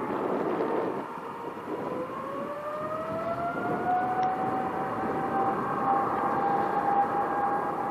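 Jet airliner engines spooling up: a whine that rises in pitch from about two seconds in and then holds steady over a broad rushing noise.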